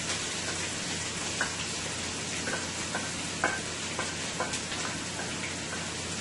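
Chopped fresh seasoning frying in hot oil in a pot with a steady sizzle, with a scatter of light clicks and taps as it is emptied in from a bowl.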